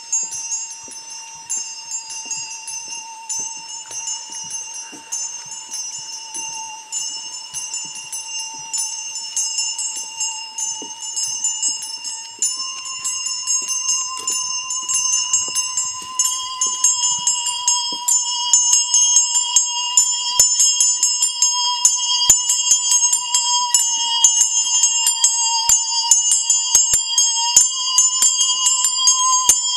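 Musical saw holding a single wavering note that steps up slightly in pitch twice, under many small handbells struck in a quick, high tinkling patter. The bells grow louder and denser from about halfway through.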